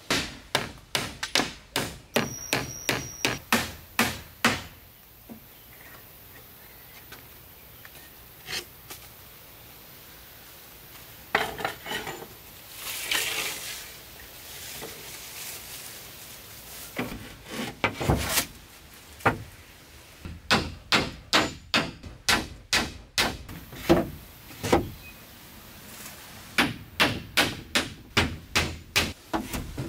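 Repeated blows of a tool on wood, in runs of quick strikes about two to three a second with quieter pauses between them; a short rasping rub comes about halfway through.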